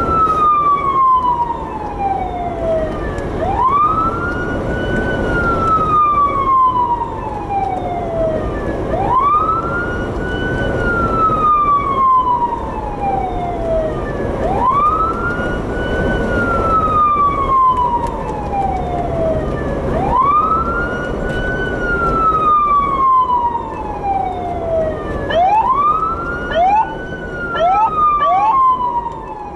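Police siren on a Jeep sounding a wail: each cycle climbs quickly, then falls slowly, repeating about every five seconds. Near the end come a few short quick rising chirps. Steady vehicle road noise runs underneath.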